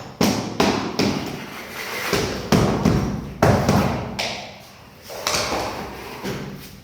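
About a dozen hard knocks at an uneven pace, each with a short tail, the loudest in the middle.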